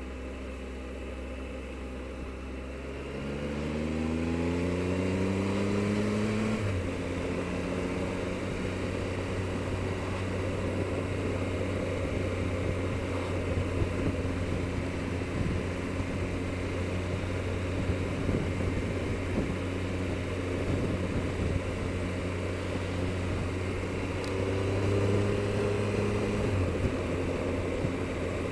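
Triumph Explorer motorcycle's three-cylinder engine pulling hard from about three seconds in, its pitch climbing until a gear change drops it suddenly, then running steadily at cruising speed over a rush of wind and road noise. Near the end it rises briefly again and drops with another gear change.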